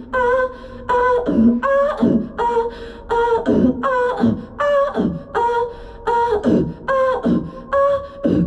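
A woman's voice improvising wordlessly into a handheld microphone in a steady repeating rhythm: short sung notes, each dropping away in a falling slide, mixed with percussive mouth sounds in the manner of beatboxing.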